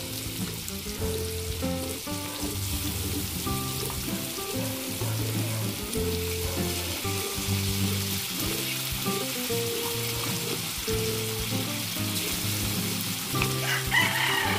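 Ground pork, hot dog and bell pepper sizzling in oil in a wok while thick spaghetti sauce is poured in from a pouch, under background music with a run of held low notes.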